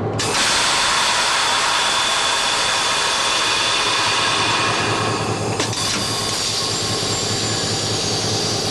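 A Westinghouse 26L brake valve is put into emergency: the brake pipe dumps its air to atmosphere in a sudden loud, steady rush that starts about a quarter second in. A click comes about five and a half seconds in, after which the rush is a little quieter. Beneath it the locomotive's EMD 645 turbocharged diesel idles with a steady low hum.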